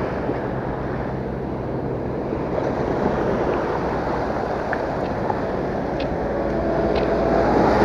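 Small waves washing up and draining back on a sandy beach, with wind on the microphone.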